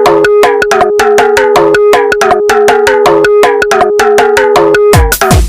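Background electronic music: a fast, even run of short, bright percussive notes over a steady held tone, with a heavy kick-drum beat coming in near the end.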